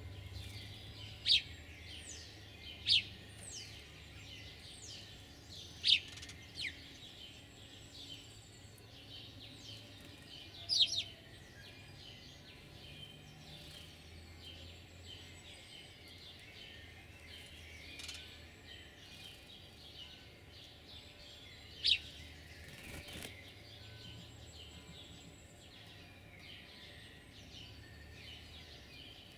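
Songbirds chirping: a handful of loud, short, sharp chirps at irregular intervals over a steady background chorus of fainter birdsong.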